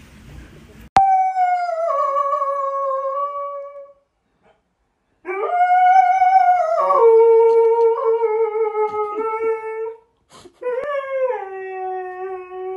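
A dog howling: three long howls with short breaks between them, the first starting about a second in. Each howl starts high and slides down in pitch.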